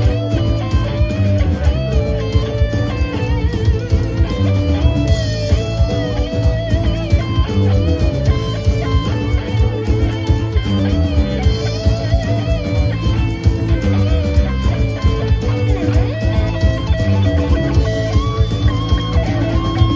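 Live rock band playing an instrumental passage: electric guitar lines with bent, wavering notes over bass guitar and a steady drum beat.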